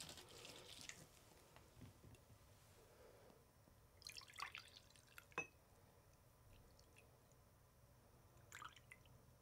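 Faint sounds of fresh lime juice being poured from a stainless citrus reamer's bowl into a glass measuring jug: a trickle with drips about four seconds in, ending in a light clink, and a few more drips near the end. At the start, a soft squish of a lime half twisted on the reamer; otherwise near silence.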